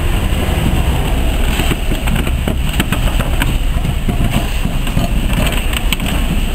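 Great Eastern J15 0-6-0 steam locomotive No. 564 rolling slowly past tender-first: a steady low rumble with scattered clanks and clicks from the wheels and running gear.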